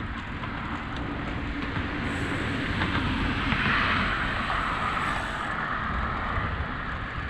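Steady rush of wind on the microphone of a moving bicycle, with a car on the road alongside passing and swelling louder in the middle.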